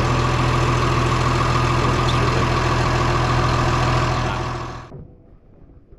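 Bulldozer's diesel engine running steadily with a deep, even drone, then fading out about five seconds in.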